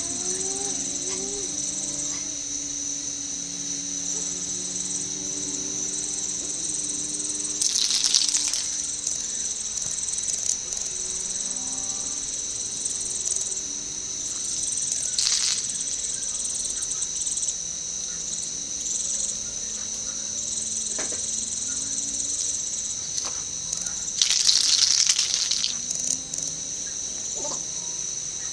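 Aerosol spray-paint can hissing in bursts: one of about a second roughly eight seconds in, a short one near the middle, and a longer one of about two seconds a few seconds before the end. Under it, insects sing steadily at a high pitch.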